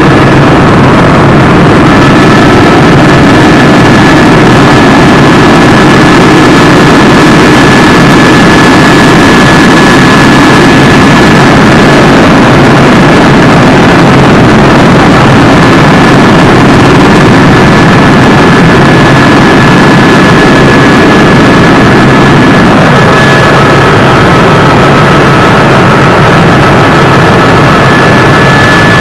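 Helicopter in flight, heard from inside the cabin: a steady high turbine whine over dense, loud engine and rotor noise.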